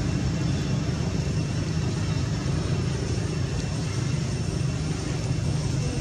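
A steady low rumble with a hiss above it, unchanging throughout.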